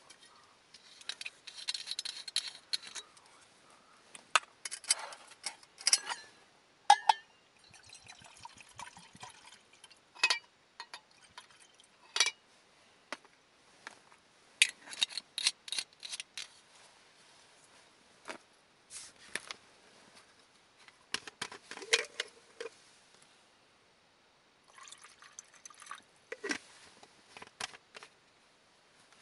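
Irregular knocks, clinks and handling noises of things being moved about, with liquid being poured.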